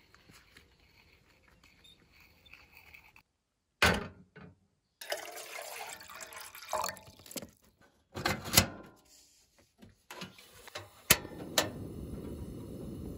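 Liquid being poured and sloshing, heard as a series of short cut-together clips, with a few sharp clicks or knocks in between.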